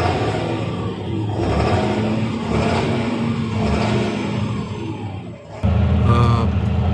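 Fendt 936 tractor's Deutz six-cylinder diesel running under load, its pitch rising and falling, with a sudden jump in loudness about five and a half seconds in. It runs unevenly in a way typical of a misfire, as if one cylinder keeps cutting out.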